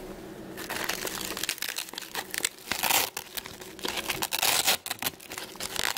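Hook-and-loop (Velcro) fastening strap on a mask being peeled open and pressed back, a run of crackly rips starting about half a second in, loudest about three seconds in and again around four and a half seconds.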